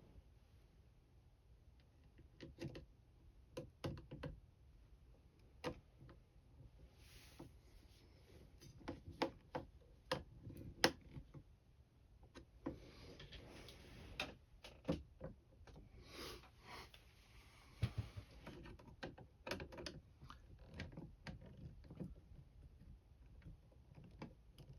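Scattered light clicks, taps and brief rustles of hands handling camper window parts and tools, with one sharper knock about eleven seconds in.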